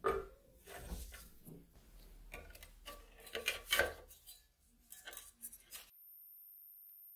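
Metal-on-glass clinks and light knocks as a rusty cleaver and a metal plate hanging on wires are lowered into a glass jar of liquid and handled, with small scraping handling noises between. About six seconds in, these stop abruptly, leaving only a faint steady high-pitched whine.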